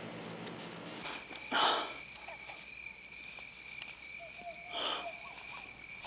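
Night insect chorus: a steady high trill with fast chirping above it. Two short, louder noises break through, one about one and a half seconds in and a fainter one near five seconds.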